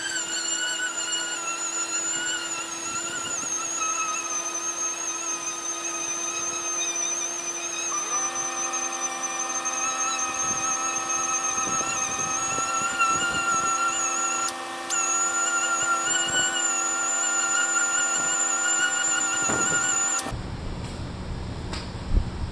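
Handheld orbital sander running with a steady high whine as it sands the gelcoat of a fibreglass boat hull, roughing it up for paint. It dips briefly partway through and cuts off near the end.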